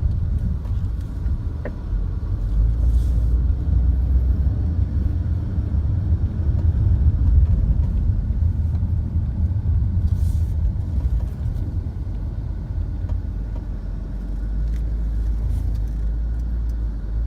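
Mini R56 car running with a steady low rumble, and a few faint, brief hissy noises over it.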